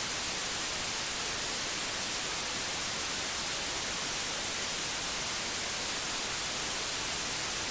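Analog television static: a steady, unchanging hiss of white noise, brightest in the high end.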